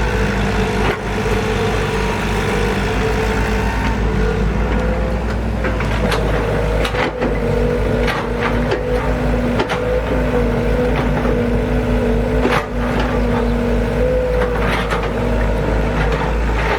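Excavator diesel engine running steadily under load, with a whine that steps up and down in pitch and scattered clanks and knocks.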